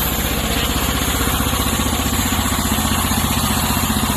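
Small engine of a homemade sawmill running steadily, with a rapid, even firing beat.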